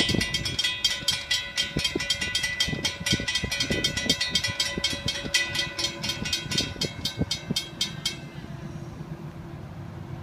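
Railroad grade-crossing bell ringing rapidly and evenly, about four strokes a second, while the crossing gates lower. It stops about eight seconds in, as the gates come fully down, leaving a fainter low steady rumble.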